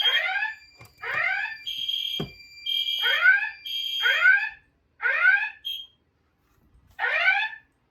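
Fire alarm ceiling speaker/strobes on a voice evacuation panel sounding the alert tone between voice messages: short rising sweep tones, about one a second, grouped in threes with a pause. A steady high-pitched alarm tone sounds in the same rhythm and stops about halfway through, and there is one dull thump a little after two seconds in.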